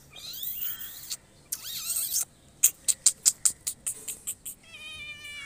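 Birds calling: high twittering chirps, then a quick run of sharp clicking notes at about four a second, and a harsh, buzzy call near the end.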